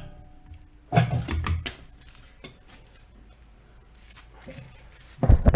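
Metal parts or tools being handled, clinking and knocking: a short run of rattling clicks about a second in, a single click near the middle, and a louder knock near the end.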